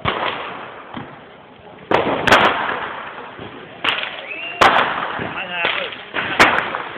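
New Year's firecrackers and fireworks going off: a string of sharp bangs, roughly one a second from about two seconds in, with a short rising whistle in the middle.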